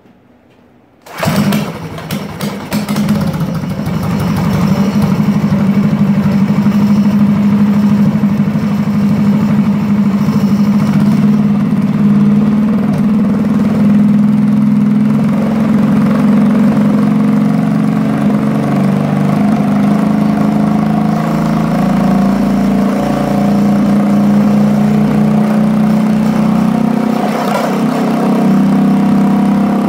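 Predator 212 single-cylinder four-stroke engine with an aftermarket open exhaust header, starting about a second in and then running loud and steady at high speed. The governor has been modified to let it reach around 5000 RPM.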